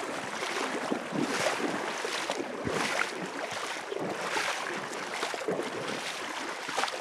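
Two people wading through shallow river water in waders, their steps splashing every second or so, over the steady rush of the river.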